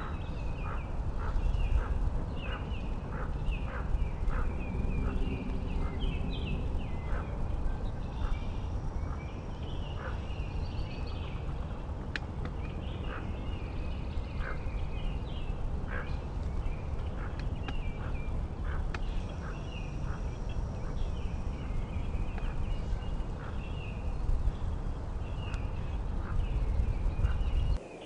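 Hooded merganser ducklings peeping: many short, high calls repeated a few times a second over a steady low rumble of wind on the microphone. It all cuts off suddenly at the very end.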